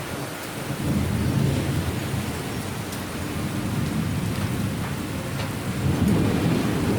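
Thunderstorm: steady heavy rain with low thunder rumbling, swelling about a second in and again near the end.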